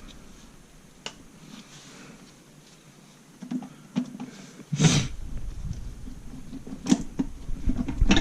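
Clicks and knocks of parts and tools being handled while working a transmission housing loose, with a sharp knock about five seconds in and another near seven, over low rubbing and handling noise in the second half.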